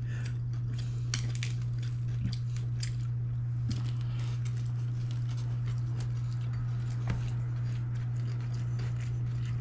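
A steady low hum, with occasional faint clinks of cutlery and dishes from a meal.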